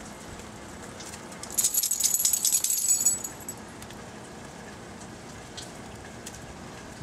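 Dog collar tags jingling in a quick metallic jangle for about a second and a half, starting about a second and a half in, over a steady background hiss.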